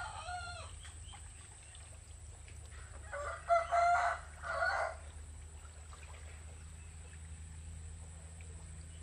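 A rooster crowing: the tail of one crow at the very start, then a full crow of about two seconds in several drawn-out parts beginning about three seconds in, over a steady low hum.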